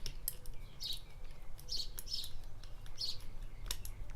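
Small birds chirping repeatedly in the background: short, high chirps, about two or three a second.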